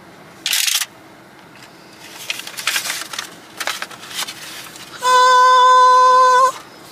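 Paper rustling and crinkling in the hands, in short bursts, then a loud, steady sung 'ahh'-like note held for about a second and a half near the end, lifting slightly in pitch as it stops.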